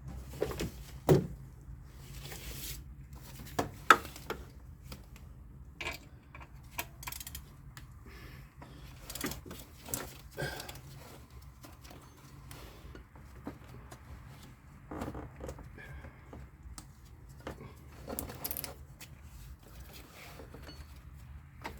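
Hands working a serpentine belt onto the engine's pulleys: scattered clicks, knocks and rustling of handling in the engine bay, with two sharper knocks about one and four seconds in.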